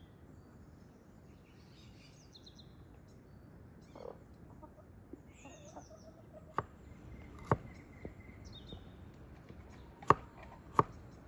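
Chickens clucking and birds chirping faintly over a quiet background, then a kitchen knife chopping carrots on a wooden log board: four sharp chops, starting about six and a half seconds in.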